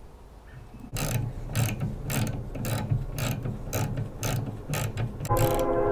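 Socket ratchet clicking in a quick run, about three clicks a second, as it turns out the retaining bolt of a lawnmower's carburetor float bowl. Near the end a steady humming tone sets in.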